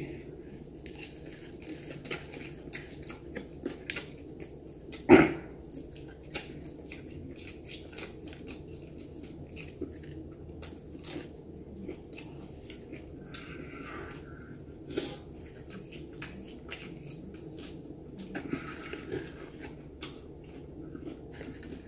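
Close-up mouth sounds of a person eating fried chicken: steady wet smacking and chewing made of many small clicks, with one louder mouth noise about five seconds in.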